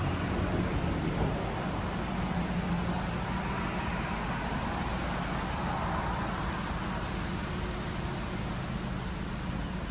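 D&S IQ 2.0 touchless in-bay car wash running: a steady rushing noise over a low hum, with no breaks, swelling a little in the middle.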